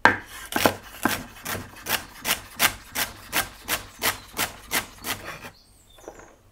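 Kitchen knife chopping vegetables on a cutting board with quick even strokes, about three a second, stopping a little before the end.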